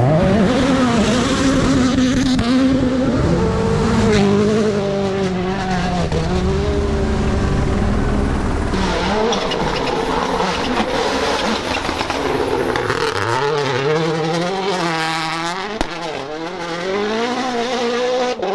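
Turbocharged four-cylinder rally car engine driven hard on a stage. The pitch climbs and drops again and again through gear changes and lifts off the throttle. In the second half there is a hiss and several sharp cracks.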